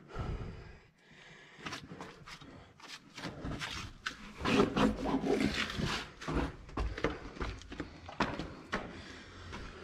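Irregular knocks, scuffs and clatters of a person climbing down a wooden ladder in a narrow stone shaft, with bumps of handling noise as they go.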